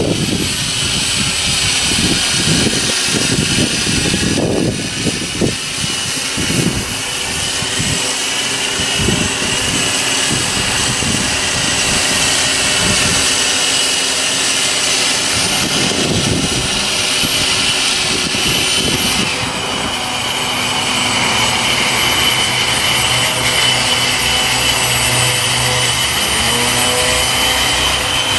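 Suction fan of a small wall-climbing robot running steadily with a high jet-like whine, its pitch shifting a little early on. Irregular low rumbles come and go beneath it.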